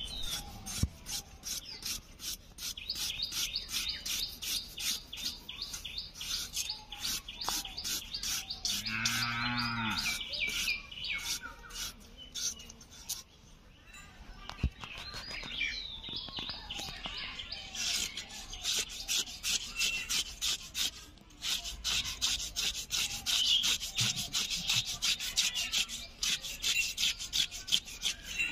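Knife slicing raw potato into thin strips, quick steady strokes several a second clicking against the cutting board, with a short pause about halfway. A cow moos once about nine seconds in, and birds chirp in the background.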